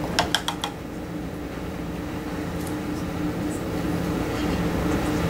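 Steady room hum with a few low held tones, like air conditioning or a fan running. Four quick light clicks come in the first second.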